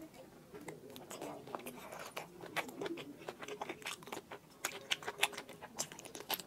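Close-miked chewing and biting of braised pig's trotter with rice: wet, sticky mouth clicks and smacks at an irregular pace.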